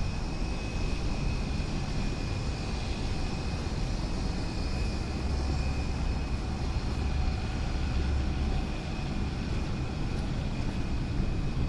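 Outdoor street ambience: a steady low rumble that swells for a few seconds in the middle, over a faint, thin, steady high tone.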